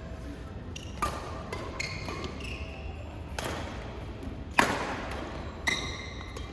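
Badminton play: several sharp racket hits on a shuttlecock, the loudest a little past halfway, mixed with short high squeaks of shoes on the court floor.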